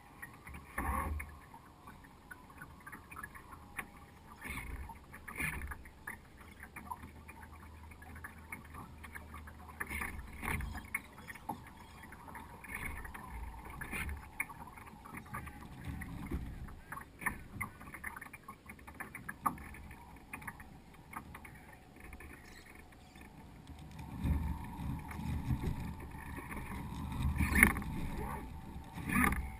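Water lapping and splashing against the hull of a small radio-controlled sailing yacht, heard from a camera on its deck, in an irregular run of small slaps and clicks. Louder low rushes come in near the end.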